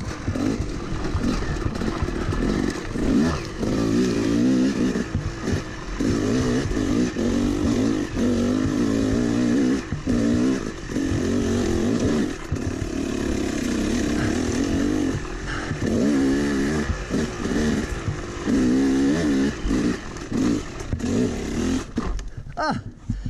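Yamaha YZ250 two-stroke dirt bike engine revving up and down again and again under the rider's throttle as it is ridden hard over rough trail. The engine note drops away near the end.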